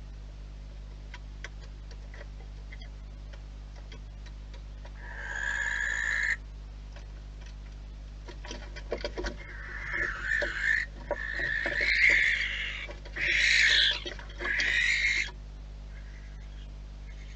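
Barn owls screeching as they fight: one harsh screech about five seconds in, then a run of four long harsh screeches from about ten seconds in, the loudest in the middle of the run. Sharp clicks and knocks come just before the run.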